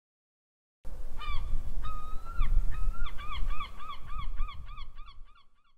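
A large waterbird calling: a couple of drawn-out calls, then a run of short honking notes that come faster and faster, over a low rumble. The sound starts about a second in and fades away near the end.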